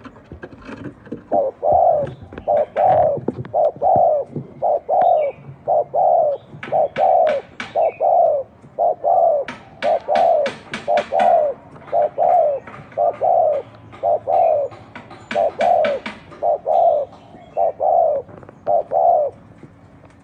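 Spotted dove cooing: a long, steady series of short, low coos, about two a second. Three quick runs of sharp clicks break in along the way.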